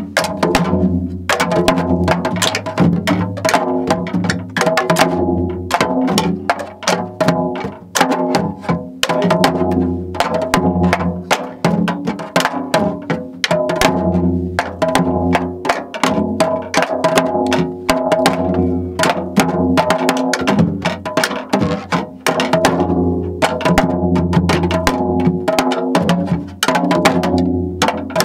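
Janggu (Korean hourglass drum) played continuously in the jungjungmori rhythm: sharp stick clicks on the high head mixed with deep, ringing strokes on the low head, in a steady run of beats.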